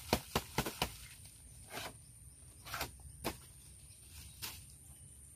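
Sharp knocks and clacks of trap tubes being handled and set down on the ground: a quick run of about half a dozen in the first second, then single knocks every second or so.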